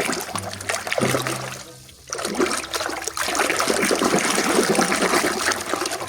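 Water splashing and trickling as a muddy toy is washed by hand in a tub of water, with a short break about two seconds in.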